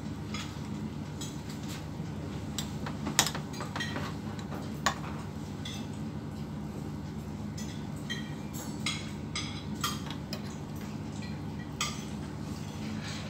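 Cutlery clinking against dishes in scattered light taps, over a steady low hum.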